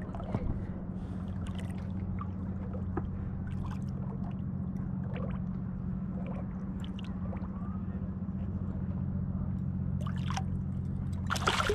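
Small outboard motor idling with a steady low hum, under light water splashes and small knocks from a sea catfish being unhooked at the side of an inflatable boat. Near the end there is a louder splash as the fish thrashes at the surface.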